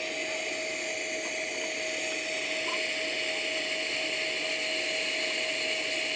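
Lift-TIG welding arc on stainless steel at about 95 amps, run from a Tenya NB-200 inverter welder: a steady, even hiss with a thin steady whine under it.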